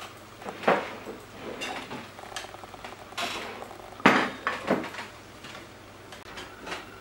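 Ceramic plates and a serving platter set down on a wooden table: several knocks and clinks. The loudest comes about four seconds in, as the platter goes down.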